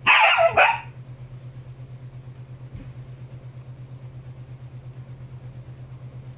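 A husky gives a loud, harsh bark in two quick parts, then a steady low mechanical hum with a fast, even pulse (about five a second) carries on.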